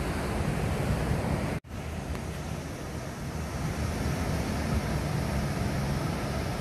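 Ocean surf with wind buffeting the microphone, a steady rushing noise that drops out for an instant about a second and a half in.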